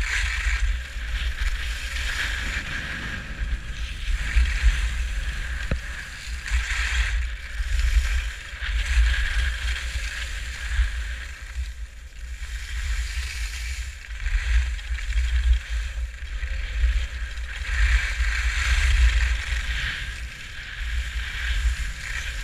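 Skis scraping and carving on packed snow, the hiss swelling and fading with each turn every couple of seconds, under a heavy rumble of wind buffeting the GoPro's microphone.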